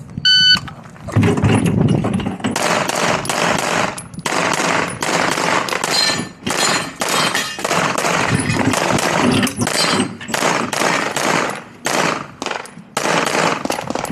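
Competition shot timer beeps once, then a semi-automatic pistol fires in rapid strings of shots with short pauses between them.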